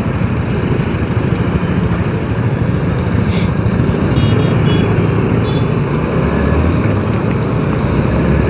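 TVS Apache motorcycle running steadily while being ridden, its engine note mixed with wind rush on the camera. A short sharp click a little over three seconds in, then a few brief high beeps.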